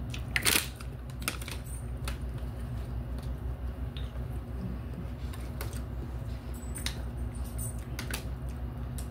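Close-up eating and drinking noises: forks clicking and tapping in cup noodle cups, chewing, and a plastic water bottle handled for drinking. The clicks come scattered and irregular, with a louder crackle about half a second in, over a steady low hum.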